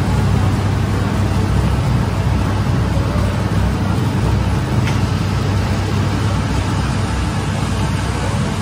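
Dough divider machine running, a steady low mechanical hum and rumble.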